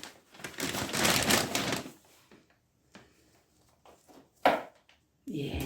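Dry bedding material rustling and crunching as it is handled for about two seconds, then a few small clicks and one sharper knock about four and a half seconds in, and rustling again at the end.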